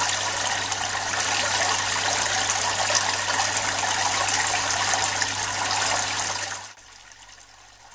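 Water jetting out through the many small holes of a 3D-printed bubble head and splashing into the tank water, the falling streams drawing in air to aerate it. A loud, even splashing that drops abruptly to a much quieter trickle near the end, over a low steady hum.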